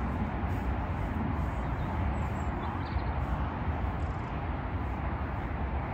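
Wind buffeting the microphone: a steady low rushing noise.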